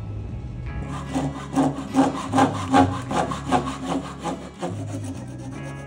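Hand saw cutting through a thin piece of wood in quick, even strokes, about two and a half a second, starting about a second in and stopping shortly before the end.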